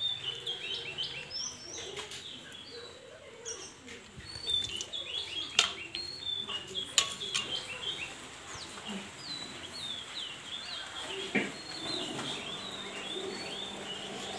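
Small birds chirping with many short, quick, high calls, and a few sharp clicks around the middle.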